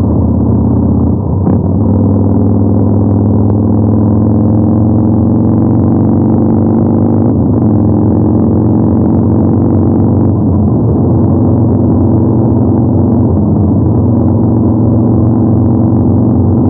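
Yamaha MT-01's 1670 cc air-cooled 48-degree V-twin engine and exhaust running under way at cruising speed. The pitch climbs gently over the first several seconds, dips briefly about seven seconds in, then holds steady and eases a little after ten seconds.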